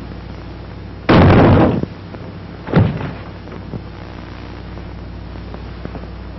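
A loud crash lasting under a second, followed by a second, shorter thump about a second and a half later, over the steady hum and hiss of an early-1930s film soundtrack.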